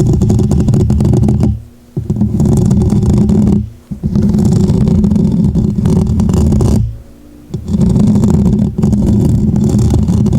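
Oiled gloved hands rubbing and squelching together, a dense crackly scrubbing in three long stretches with brief pauses about two, four and seven seconds in.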